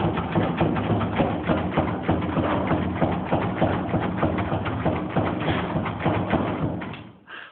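Electric doorbell ringing continuously, a rapid rattling buzz over a steady hum, for about seven seconds before it fades and stops.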